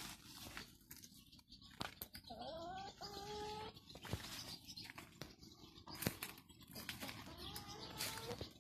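A chicken gives a drawn-out call, rising then held, about two seconds in and lasting about a second and a half, and a fainter call near the end, over scattered clicks and scratches.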